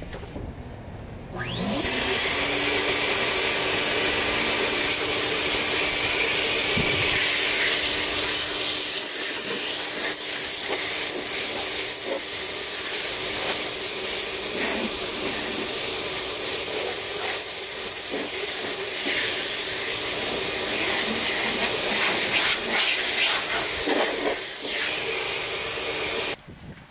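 Random orbital sander with dust-extraction vacuum sanding a car door panel. It spins up with a rising whine about a second in, runs steadily, and cuts off suddenly near the end.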